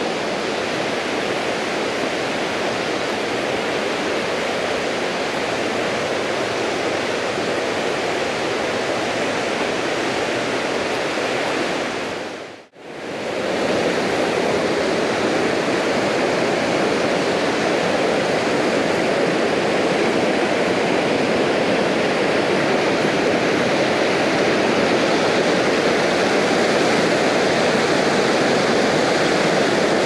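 Mountain stream running high, rushing over rocks and small cascades in a steady, even wash of water. The sound briefly fades out and back in a little before halfway, and is slightly louder after.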